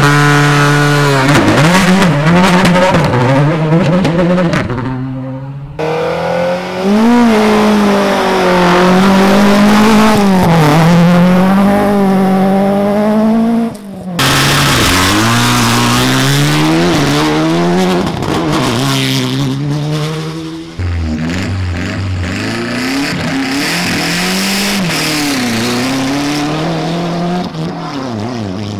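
Rally cars at full throttle on gravel stages, engines climbing in pitch and dropping back at each gear change, over several passes that cut off abruptly from one to the next.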